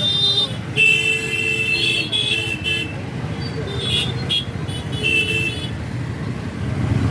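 Road traffic with vehicle horns honking in short repeated blasts over a steady rumble of engines and tyres.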